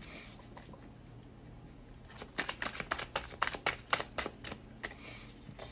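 Tarot cards being shuffled by hand: after a quiet start, a quick irregular run of crisp card snaps and flicks begins about two seconds in and lasts a couple of seconds, with a few more near the end.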